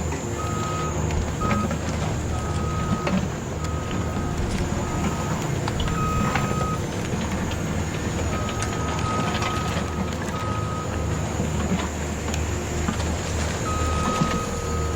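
Yigong YG28F RC bulldozer running: a steady low drone with clicks and rattles, under a single-pitched reversing-style beep that comes and goes in irregular stretches.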